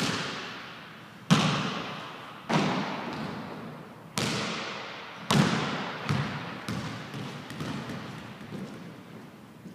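Basketball bouncing on a hardwood gym floor, each bounce echoing through the empty gym. Several hard bounces come a second or more apart, then from about two-thirds of the way in a run of quicker, fainter bounces as the ball settles to rest.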